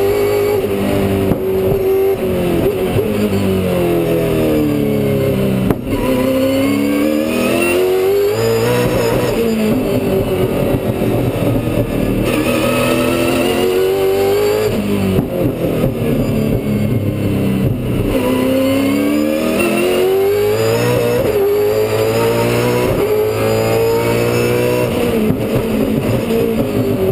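Holden Commodore V8 Supercar's 5.0-litre V8 at racing speed, heard from inside the cockpit, with its revs falling under braking and climbing again several times as the car is driven hard through the corners of a lap.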